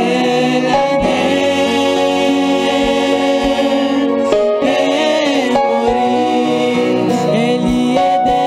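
Gospel worship song: sung vocals over sustained instrumental chords, with a soft low beat about once a second.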